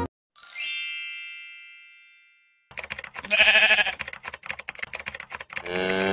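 A bright chime rings once and fades away over about two seconds. Then rapid clicking starts, a sheep bleats briefly, and a cow begins to moo near the end.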